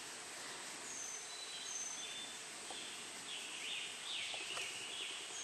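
Several songbirds singing: short, high, thin whistled notes and bursts of quick chirps, repeating every second or so over a steady hiss.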